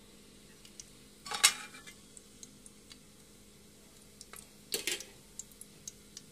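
Metal spatula clattering against the inside of an aluminium pressure cooker, twice: a louder knock about a second in and another near the five-second mark, with a few small ticks between.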